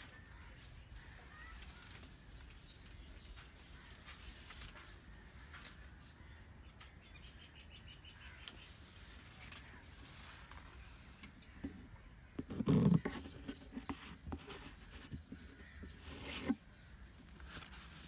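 Faint outdoor ambience with a few small bird chirps. A low thump comes about two-thirds of the way through, and a sharper knock near the end.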